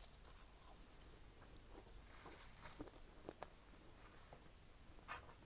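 Near silence with faint chewing: a few soft, scattered mouth clicks.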